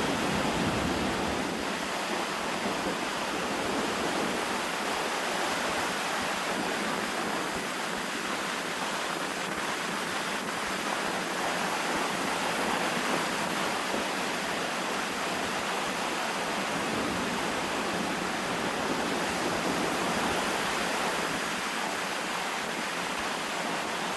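Strong wind blowing over a lake beach, mixed with waves washing on the shore, making a loud, steady rushing noise.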